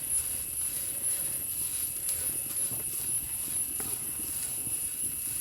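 Chopped Malabar nut (adalodakam) leaves being stirred as they dry-roast in an uruli: irregular light scraping and rustling of the ladle and leaves against the pan.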